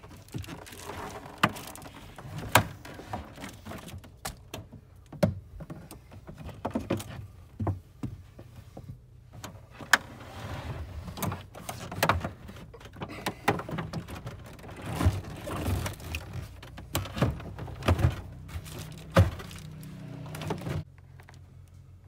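A portable air conditioner being lifted into a pickup's rear cab and set in place: irregular knocks and thunks, with scraping and rustling in between, as the unit and its foil-wrapped hose are handled. The handling stops about a second before the end.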